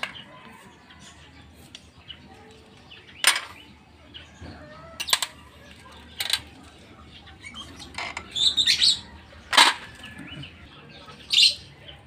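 Metal parts of a Suzuki Raider 150 motorcycle engine clinking as gears and transmission shafts are worked loose from the open crankcase and handled by hand. About five sharp clinks come a second or two apart.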